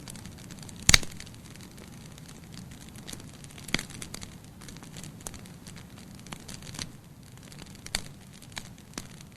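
Campfire crackling: irregular sharp pops and snaps over a low, steady rush of flame, with one loud pop about a second in.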